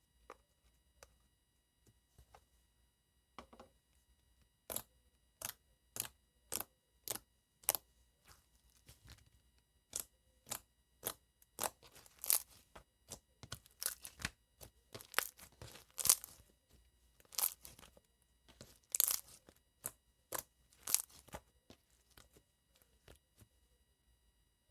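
Fingernails clicking and tapping against a soft, jiggly slime while it is handled: a string of sharp clicks, spaced evenly at first, then denser and louder with longer, fuller presses from about halfway through.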